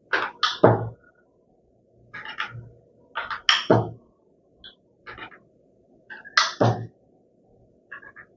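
Wooden rolling pin rolling dough out on a wooden board: short rolling strokes with knocks against the board, in about six clusters with short pauses between them.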